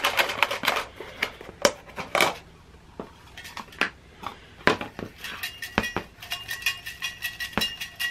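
A metal canteen cup handled and shaken with folded paper slips inside: scattered knocks and clinks, then from about five seconds in the cup rings steadily under repeated light taps and rattles.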